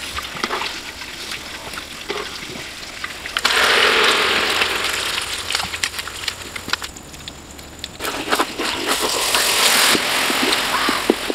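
Beaten egg with chopped green onion frying in hot oil in a wok: a loud sizzle that starts suddenly a few seconds in, dips briefly, then comes back, with a metal spatula scraping and clicking on the pan near the end. Before the sizzle there are only soft taps.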